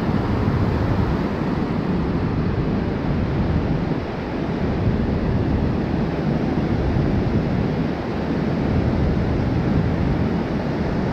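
Ocean surf washing up on a sandy beach, a steady rush of waves, with wind buffeting the microphone.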